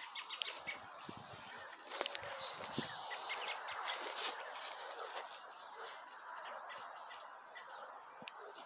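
Arabian horse grazing: grass tearing and chewing in irregular crisp snaps, with birds chirping in the background.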